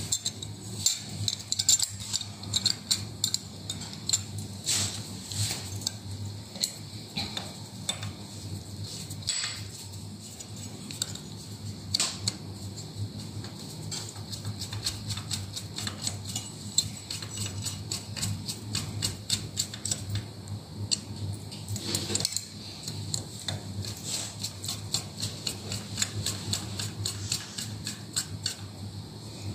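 Screwdriver driving small countersunk screws into the metal back plate of a stove-top log burner fan: a rapid run of small metallic clicks and ticks, with a low steady hum underneath.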